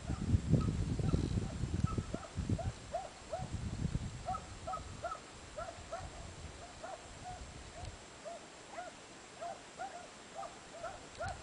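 Hunting hounds giving tongue on the trail of a hare: a long, quick run of short, faint yelping barks, about two or three a second. Wind rumbles on the microphone through the first few seconds.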